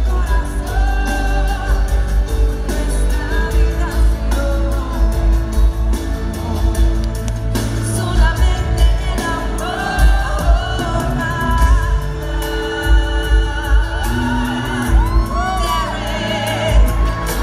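Female pop singer singing a song live into a microphone over a band backing with a steady heavy bass beat, heard from the audience in a large hall.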